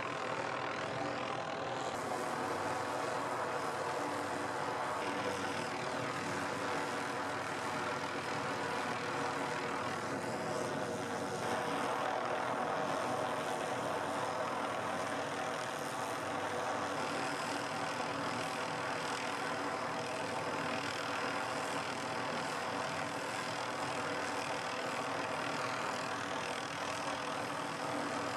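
Helicopter hovering, its rotor and engine making a steady drone that does not let up.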